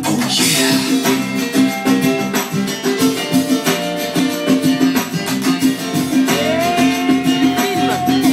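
Upbeat music with plucked guitar over a steady rhythm; about six seconds in, a long note slides up and holds.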